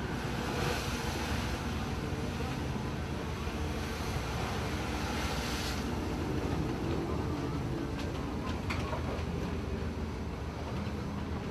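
Heavy diesel engine of a loaded tipper truck running steadily as it drives off a ferry barge onto the bank, with wind noise on the microphone.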